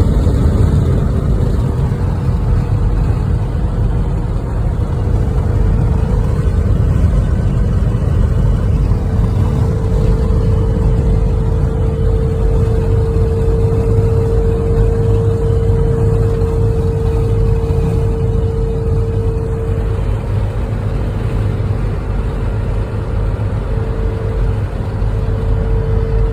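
Sprinter van driving along: a steady engine and road rumble with a constant whine above it.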